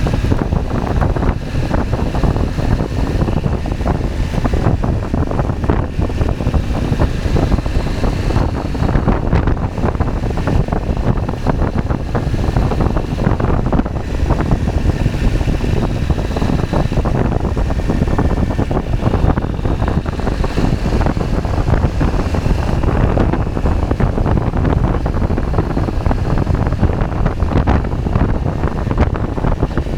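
KTM 790 Adventure's parallel-twin engine running while the bike is ridden, with heavy wind buffeting on the microphone.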